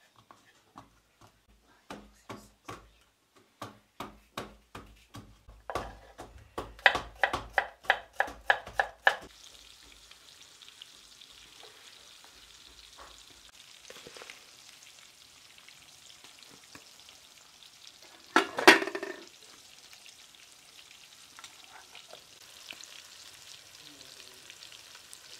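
Garlic cloves pounded with a wooden pestle in a wooden mortar: a run of knocks, getting louder and coming about three a second, until they stop about nine seconds in. Then pieces of bonito frying in oil in a pan, a steady sizzle, with one brief loud noise about two-thirds of the way through.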